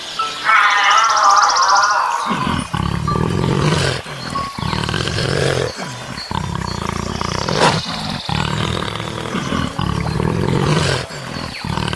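Lion roaring: a run of deep grunting roars, one roughly every second, starting about two seconds in, after a brief higher wavering call.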